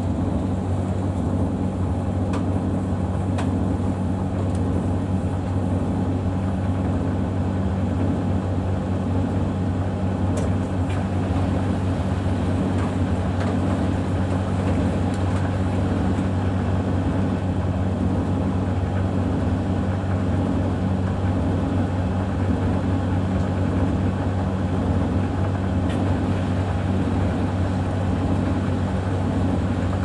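Samsung WW90K5410UW washing machine and Hoover VTV581NC tumble dryer running side by side. The dryer's drum is tumbling a load of clothes, and together the machines give a loud, steady motor hum with a few faint clicks now and then.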